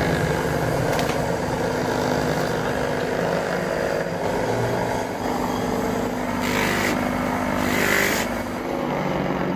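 Small electric buffing motor running with a steady hum. Twice near the end, a truck inner tube's rubber is pressed against its spinning abrasive disc with a rough scraping grind each time, roughening the rubber so a patch will stick.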